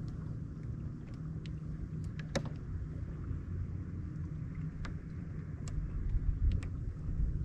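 Steady low hum of a distant motorboat engine, a little louder near the end, with scattered light clicks and ticks over it.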